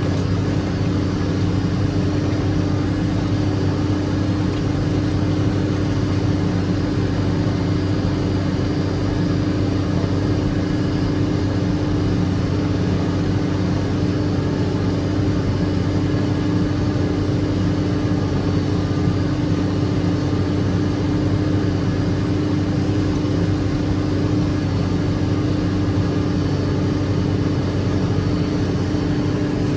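An engine running steadily at an even speed, with a constant low hum that does not rise or fall.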